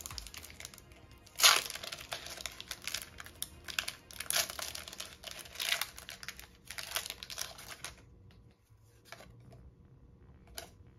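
Foil booster-pack wrapper being torn open and crinkled by hand, with a sharp tear about a second and a half in and bursts of crinkling and rustling after it, dying down to a few light clicks near the end.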